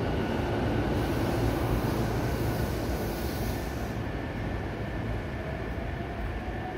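Electric commuter train running, a steady rumble with faint whining tones, easing slightly in level. A high hiss comes in about a second in and stops about four seconds in.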